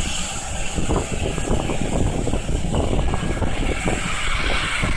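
Wind buffeting the smartphone microphone in irregular low gusts, over a steady rushing hiss.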